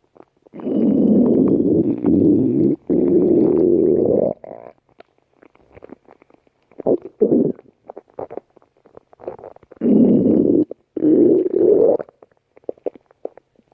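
Stomach growling: one long, loud growl over the first four seconds, broken once by a brief gap. Then scattered small gurgles and clicks, and two more growls near the end.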